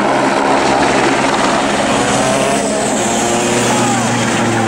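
Citroën DS3 WRC rally car's 1.6-litre turbocharged four-cylinder engine running hard as the car drives past close by on a snowy road; a loud, steady engine note.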